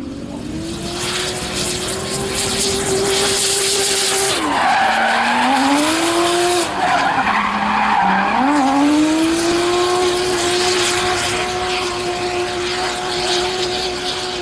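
Drift car's engine held at high revs while its rear tyres spin and screech through a long smoky slide. The engine pitch drops and climbs back up twice, around four and eight seconds in.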